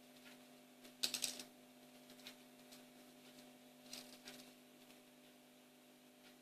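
Fidget spinner clicking and rattling against a hard surface as a cat bats at it: a quick cluster of sharp clicks about a second in, a single click a little later, and another short cluster around the middle. A steady low hum underlies it.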